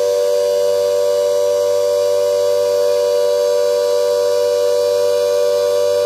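GP8 twin-headed air raid siren sounding the all clear: a steady wail held at full pitch, two close notes sounding together with no rise or fall.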